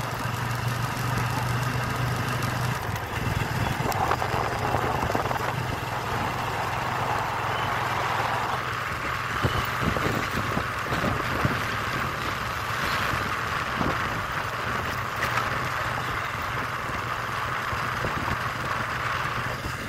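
Engine of a small vehicle running steadily while it is ridden along a road, with a low hum and rushing road and wind noise that grows stronger about halfway through.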